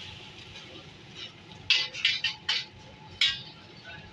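Metal ladle and steel wok clanking: about five sharp clinks in the second half, over a low steady background.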